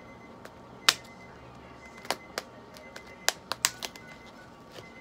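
Irregular sharp clicks and crinkles of a clear plastic Elizabethan collar being handled around a cat's neck, about eight in all, with a small cluster past the middle.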